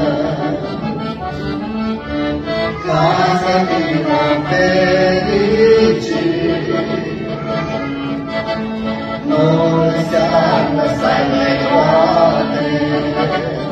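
A song of praise to God sung by a voice with accordion accompaniment: held accordion notes under a wavering sung melody.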